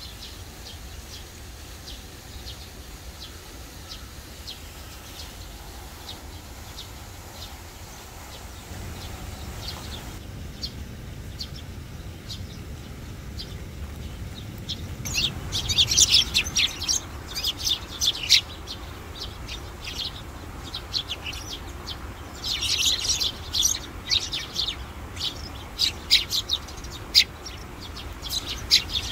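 Eurasian tree sparrows chirping. The chirps are faint and scattered at first, then a little past halfway come many loud, close chirps in quick succession, some in rapid runs.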